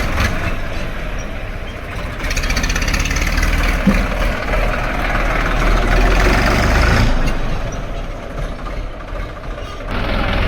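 Diesel tractor engine running, louder through the middle for several seconds, then easing off and picking up again near the end.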